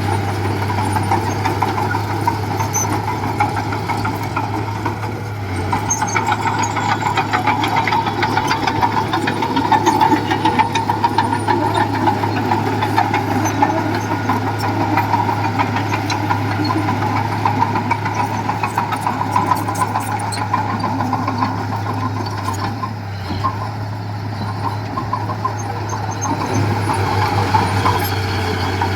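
Diesel engine of heavy earthmoving machinery running steadily throughout, a constant low hum with a rapid mechanical chatter over it.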